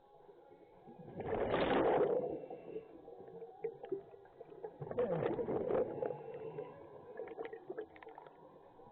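Scuba regulator exhalations heard underwater: a gush of bubbles about a second in, lasting about a second, and another about five seconds in, with faint clicks and gurgles between breaths.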